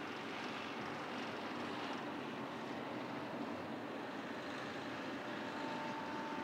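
Steady rumble and hiss of a freight train rolling past on the rails, with a faint high steady tone coming in near the end.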